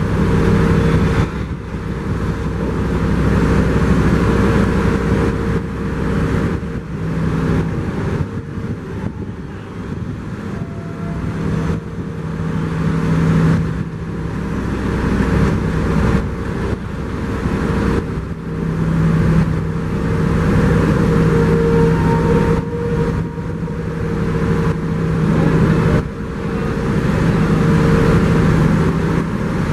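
Heavy engine of a Cometto self-propelled transporter running steadily as it moves slowly under the load of a box-girder launcher machine. It holds a steady hum and swells and eases in loudness every few seconds.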